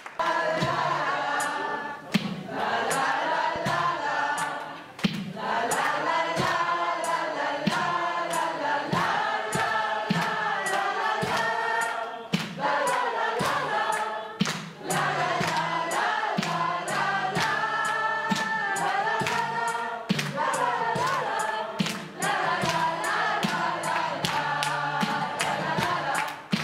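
A large mixed group of voices singing a pop song together as a choir, in phrases with short breaks between them, with sharp hand claps keeping a steady beat.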